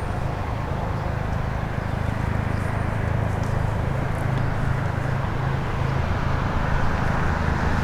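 Steady low rumble of outdoor background noise, even throughout, with no siren tone or voice sounding.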